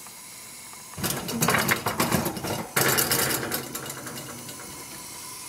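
Metal oven rack sliding on its rails with a glass baking dish of ceramic ramekins on it, rattling and clinking in two bursts, the first about a second in and the second near three seconds in.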